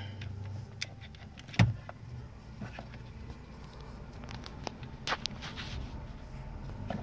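Hard plastic clicks and knocks as fingers press and work the latches of a 1997 Corsa's turn-signal stalk switch on the steering column. The loudest knock comes about one and a half seconds in, with a few more clicks around five seconds in.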